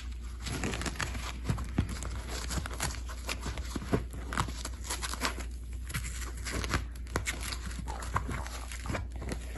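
Dog rain boots being handled and worked onto a dog's paw: irregular rustling, scuffing and small clicks of the boot and its strap.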